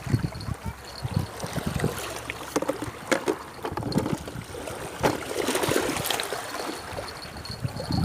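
Water splashing and trickling, with uneven gusts of wind buffeting the microphone and a couple of sharp splashes or knocks.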